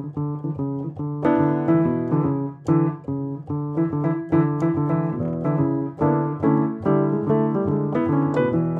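Background piano music: a steady run of single struck notes, about two to three a second, each ringing briefly before the next.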